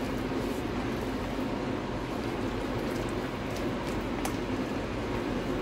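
A hand squishing and kneading thick gram-flour (besan) pakora batter with chopped onion in a plastic bowl, with a few faint clicks, over a steady background hum.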